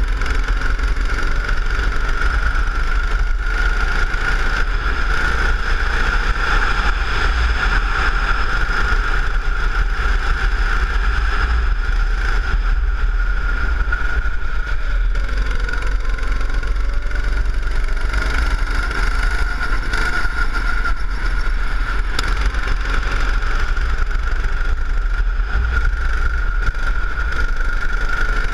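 Go-kart engine running at speed, heard from on board the kart through a lap: a steady droning whine over a deep rumble, rising and falling only slightly through the corners.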